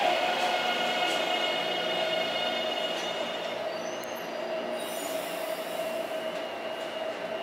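Taipei Metro Bannan line train braking to a stop at an underground platform. A high whine fades over the first few seconds as the train slows and halts, and a steady hum goes on while it stands.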